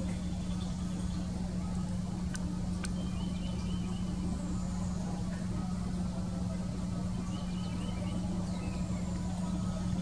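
A steady low mechanical hum, like an engine running, with faint birds calling over it: two short runs of quick high repeated notes, one about three seconds in and one near the end, and two sharp clicks about half a second apart between two and three seconds in.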